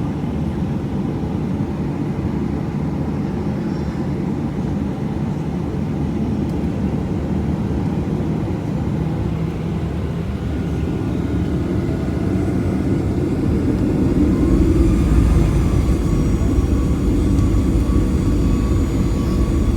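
Boeing 737-800 airliner's CFM56 turbofan jet engines running with a steady low rumble that grows louder about halfway through, as high whining tones come in over it.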